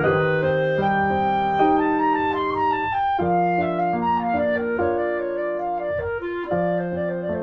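Instrumental background music: held notes and chords that change every second or so.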